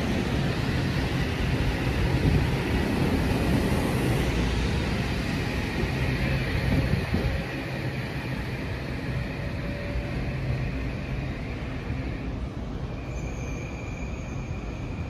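Passenger train rolling along the rails, a steady rumble of wheels and running gear that eases off a little about halfway through. A faint high steady tone sounds near the end.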